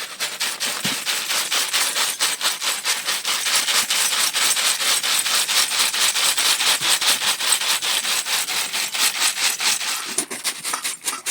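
Rapid, even scraping or rubbing strokes, about six a second, keep going and ease off briefly near the end.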